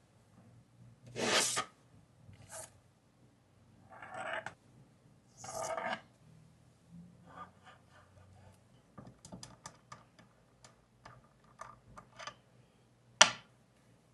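Hand grinder parts being handled and set down: three short scraping, sliding sounds, then a run of light clicks and taps, with one sharper click near the end.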